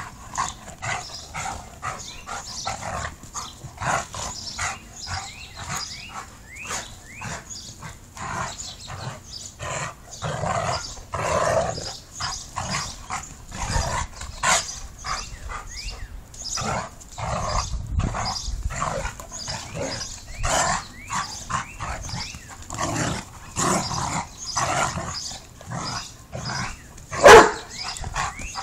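Two dogs, a Doberman and a white shepherd, play-fighting and growling at each other in a quick string of short growls and snarls. There is one loud bark near the end.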